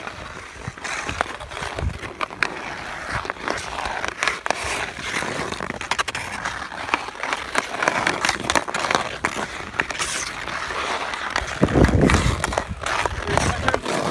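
Hockey skate blades scraping and carving on pond ice, with many quick taps of an Easton hockey stick blade on the puck and ice as the player stickhandles. A louder stretch of low noise comes near the end.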